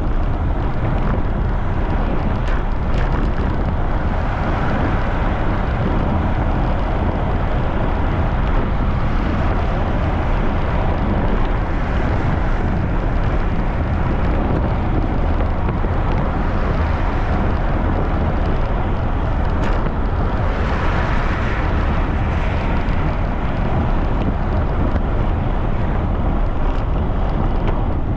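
Strong wind buffeting the microphone of a camera on a moving bicycle: a steady, loud noise heaviest in the low end, with a brief swell of higher hiss about twenty seconds in.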